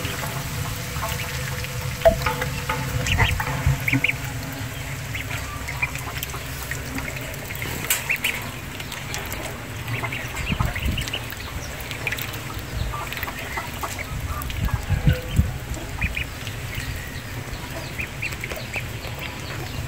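A group of ducklings peeping, with many short, high peeps scattered throughout and a few louder clusters.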